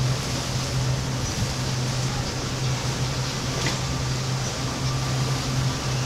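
Motorboat engine running steadily with a low, even drone, mixed with the rush of water and wind along the moving hull.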